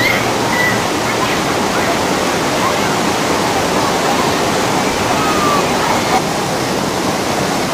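Steady rushing and churning of water through a river-rapids raft ride, with faint voices of riders over it.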